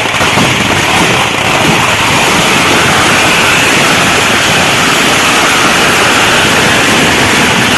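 A large firework barrage at close range: firecrackers and fountains going off so fast that the crackling runs together into one steady, very loud rush of noise. Distinct crackles can be picked out only in the first couple of seconds.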